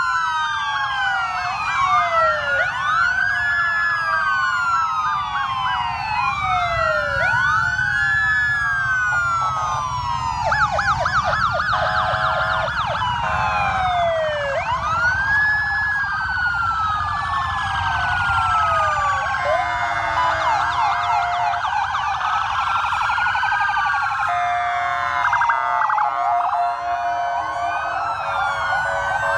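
Several American-style police car electronic sirens sounding at once, overlapping slow rising-and-falling wails and fast yelps, over a low engine rumble from the slow-moving column.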